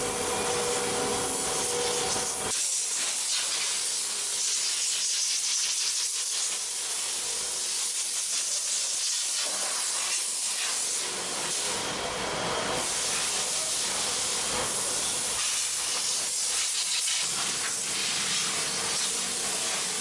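High-pressure spray hissing steadily as it is aimed into a car's engine bay, with a machine hum underneath that stops about two and a half seconds in.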